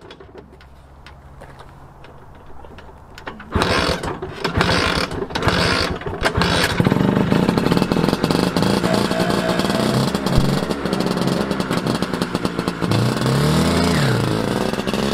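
Vintage two-stroke scooter engine being started: a few seconds of loud, ragged sputtering as it catches, then it settles into steady running and revs up and back down near the end as the scooter pulls away.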